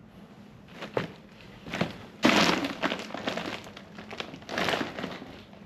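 Crunching and knocking of broken debris underfoot: two sharp knocks, then a loud gritty crunch a little after two seconds in, and another shorter crunch near the end.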